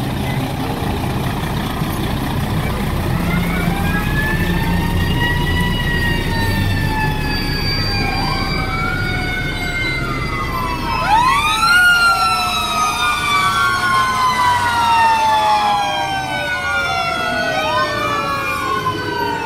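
Fire truck sirens: long siren tones sliding slowly down in pitch, then about eleven seconds in a louder siren sweeps in suddenly and several sirens overlap in repeated rising-and-falling wails. Truck engines run underneath.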